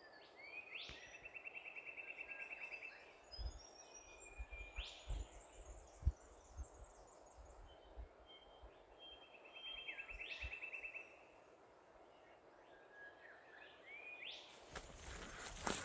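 Wild birds calling: a fast trill sounds twice, about ten seconds apart, among short rising whistled notes. Under them are scattered faint knocks and rustles of camp gear being packed up. Shortly before the end, louder crunching footsteps through dry grass and scrub begin.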